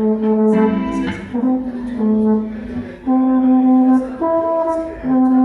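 Brass horns playing a phrase of long held notes, the pitch changing about once a second.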